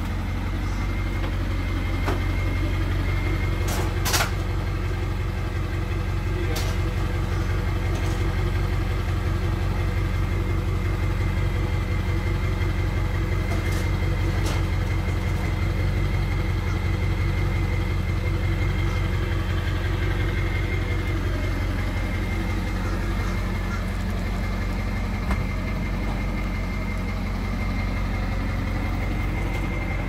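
A vehicle engine idling steadily, with a few sharp knocks, the loudest about four seconds in.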